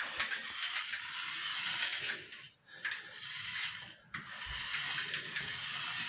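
Micro RC car's tiny electric motor and gears whirring as it drives over a stone tile floor, a high whir that cuts out briefly twice, about two and a half and four seconds in.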